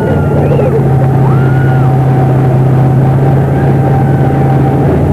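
A watercraft engine running steadily at an even pitch.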